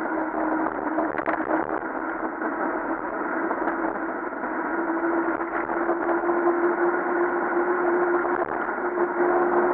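Mountain bike rolling fast down an asphalt road: a steady rushing of tyres and wind, with a humming tone that rises slightly in pitch about halfway through.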